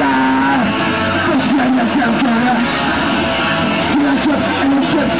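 Hardcore punk band playing live: distorted electric guitar and pounding drums, with the vocalist yelling into the microphone. The sound is loud and dense throughout.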